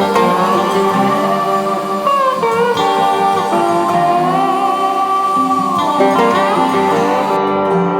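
Background music led by guitar, with held notes that slide up and down in pitch.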